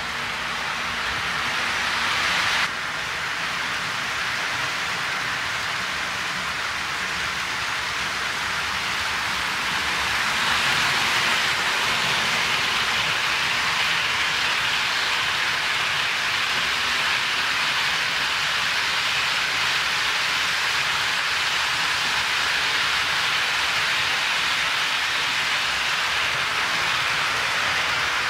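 HO scale model freight train rolling past on sectional track: a steady, rain-like rushing clatter of many small wheels on the rails. It drops suddenly about three seconds in and grows louder from about ten seconds in.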